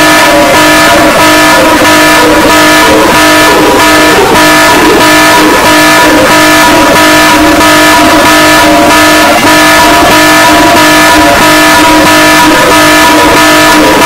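Loud, harsh electronic alarm tone of a mock Emergency Alert System warning: a chord of steady tones held throughout with a regular pulsing.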